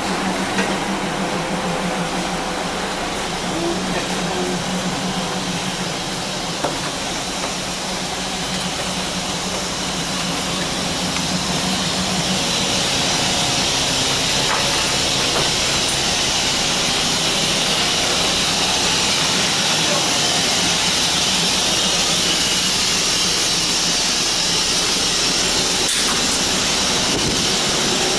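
Steady hiss and low hum inside a passenger railway carriage, from the train's machinery running. A couple of faint knocks stand out, and the noise grows a little louder about halfway through.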